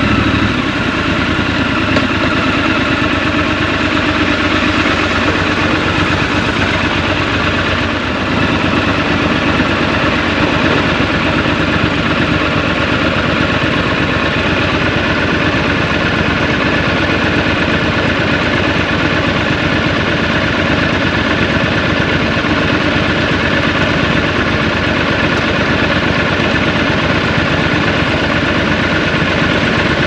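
Triumph Scrambler 1200 XC's parallel-twin engine idling steadily, with no revving.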